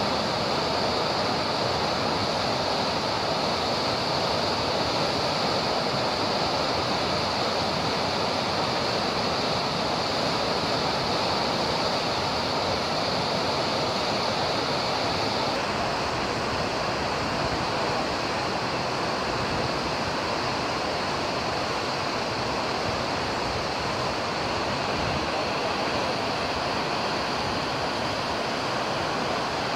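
Water rushing with great force through an open sluice gate into a canal, a steady churning of whitewater.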